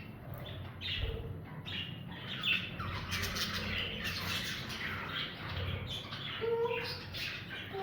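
Budgies chattering and squawking, a dense, continuous run of short, quick chirps, with a few longer sliding calls near the end.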